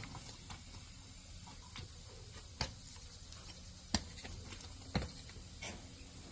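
A few sharp knocks and clicks, a second or so apart, as a rider mounts a standing horse from a wooden mounting block: tack, boots on the block and the horse shifting its weight.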